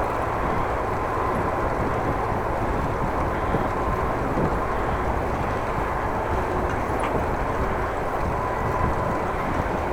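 Wind rushing over an action camera's microphone during a bicycle ride: a steady noise with a faint, steady whine running through it.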